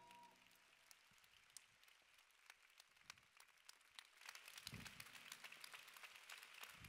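Audience applause, faint: scattered hand claps at first that thicken into fuller clapping about four seconds in.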